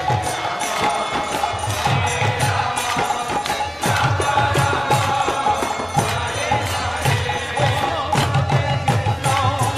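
Devotional kirtan music: chanting over a steady held drone, with a regular beat of drum and small jingling cymbals.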